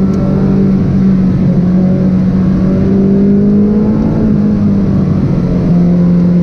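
Ferrari 458 Speciale's naturally aspirated V8 heard from inside the cabin, pulling hard through a corner at fairly steady revs, with a small drop in pitch about five and a half seconds in.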